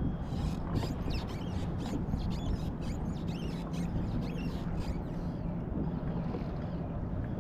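Ambient sound on a kayak at sea: water slapping against the hull and wind on the microphone, with a faint steady low hum.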